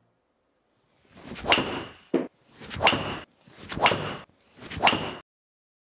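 Four swings of a 12-degree driver in quick succession, about a second apart, each a swish of the clubhead ending as the driver face strikes the ball. There is one short extra knock just after the first.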